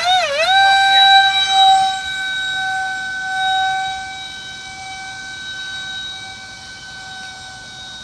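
Radio-controlled model airplane's motor running with a high whine. It wavers up and down in pitch, then about half a second in settles on a steady note that slowly grows fainter.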